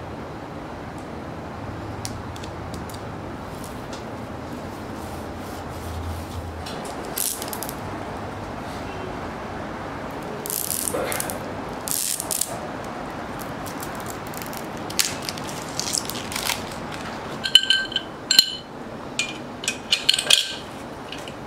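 Hands rubbing a vinyl decal down onto a painted steel wagon body, with a few short swishes, then metal parts of a wagon's steering assembly, wheel and axle being handled: sharp clinks and clanks, some ringing briefly, clustered in the last few seconds.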